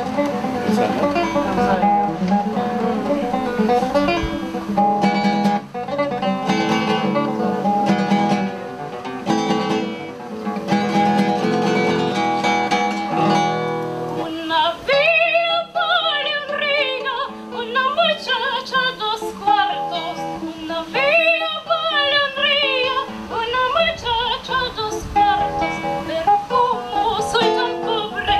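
Classical guitar played fingerstyle, alone for about the first half, then accompanying a woman's singing voice that comes in about halfway through, with a wide vibrato.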